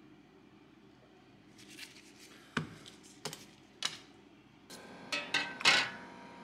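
Small steel parts of a Mauser C96 pistol handled on a work mat, with three sharp metal clicks about half a second apart as they are set down. Near the end, more clinks and a brief wash of noise as the parts are handled in a pan of degreasing solution.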